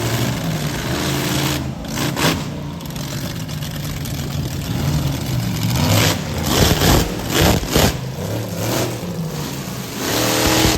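Monster truck engine running and revving, with a few short, loud bursts of throttle about six to eight seconds in.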